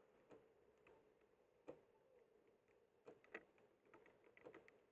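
Near silence, muffled as if inside a sealed camera housing, broken by faint, irregular ticks of raindrops striking the case.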